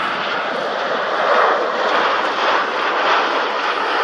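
Jet airliner engines running: a steady rushing noise that swells and eases a little.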